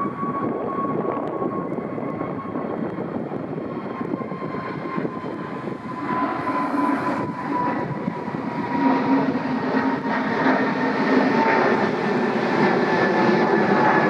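Jet airliner's engines passing: a high whine that slowly falls in pitch over a broad engine noise, which grows louder through the second half.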